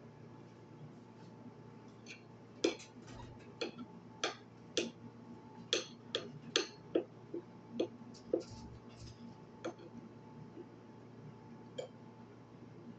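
Eating sounds: a run of irregular sharp clicks and smacks while a meal of chicken and egg is eaten, over a faint steady hum.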